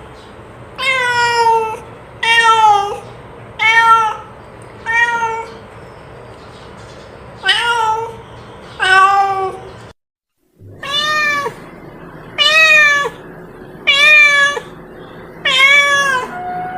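An animal calling over and over: about ten short, high, pitched cries, each under a second long, sliding down in pitch, with a brief silent break about ten seconds in.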